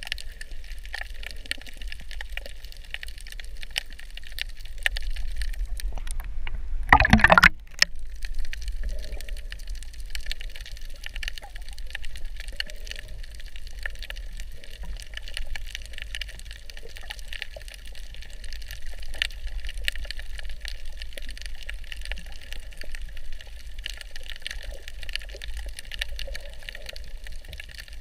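Underwater ocean sound picked up by a submerged camera: a steady low rumble with constant fine crackling. About seven seconds in, a brief loud rush of water.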